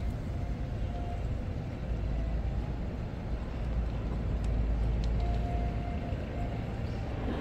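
A steady low outdoor rumble with a few faint ticks.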